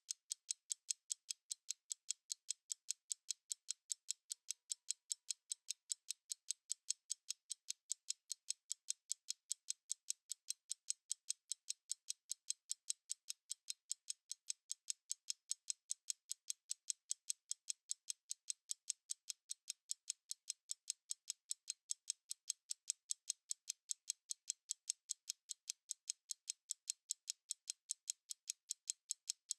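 Stopwatch ticking: sharp, high-pitched ticks at an even, rapid pace of several a second, steady throughout.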